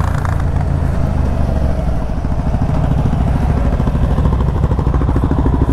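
Yamaha MT-07's 689 cc parallel-twin engine running at low revs as the bike slows on a closed throttle, a steady low pulsing rumble with wind and road noise.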